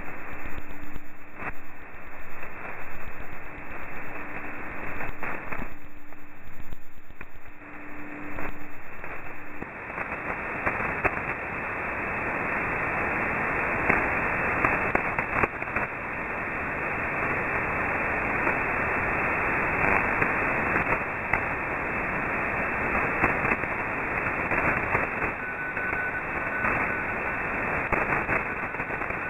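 Shortwave receiver in upper sideband on the E06 numbers station: a steady low tone with fading static, until the transmitter shuts down about ten seconds in. After that only band hiss and crackling static remain.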